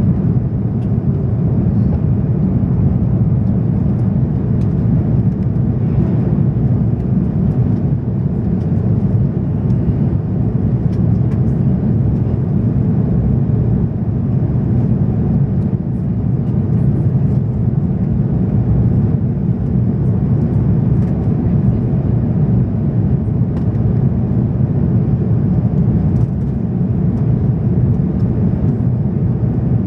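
Steady, even cabin noise inside an Airbus A340-600 climbing out after take-off: the rumble of its four Rolls-Royce Trent 500 engines at climb power, mixed with airflow over the fuselage, strongest low down and unchanging.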